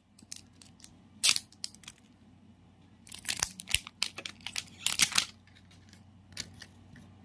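Plastic wrapping and tape on a toy capsule being torn and crinkled by hand: irregular bursts of tearing and rustling, loudest about three and five seconds in.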